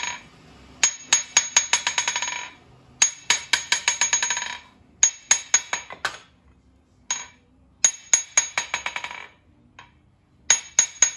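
Blacksmith's hand hammer, its face freshly ground and tuned, rebounding on the steel anvil face in several runs of rapid, ringing metallic taps separated by short pauses. This is a test of the hammer's balance and face after tuning.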